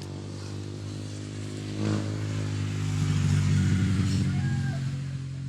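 A motor vehicle's engine passing by, growing louder to a peak about three and a half seconds in and then fading.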